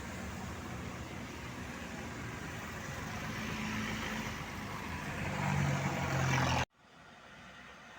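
Road vehicle engine running steadily, growing louder over the last couple of seconds, then cut off abruptly near the end, leaving faint hiss.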